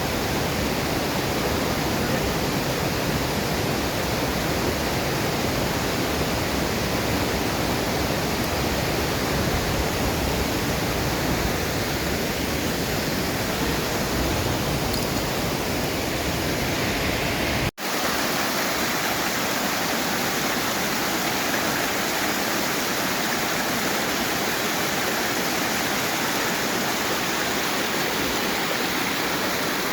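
Steady rush of falling water from a waterfall. It breaks off for an instant about 18 s in and comes back with less deep rumble.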